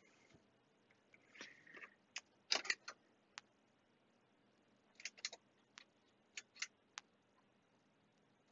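Front-panel knobs and push-button switches of a 1988 Soviet C1-118 oscilloscope being worked by hand: about a dozen short, sharp clicks at irregular spacing, some in quick pairs, after a soft rustle.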